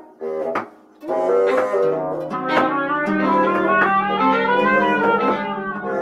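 Small chamber ensemble of strings, winds and brass playing improvised music: plucked notes over sustained wind and string tones. The music nearly drops out in the first second, then comes back in with a low held note from about two seconds in.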